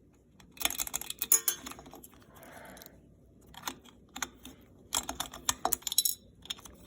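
Ceiling fan pull chains and switch being handled: two spells of quick metallic clicking and rattling, the first about half a second in and the second from about three and a half seconds in. The light chain's switch is jammed and no longer pulls.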